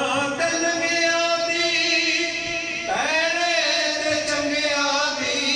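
A man singing a Punjabi devotional kalam (naat) into a microphone, holding long notes that waver, with a new phrase starting about three seconds in.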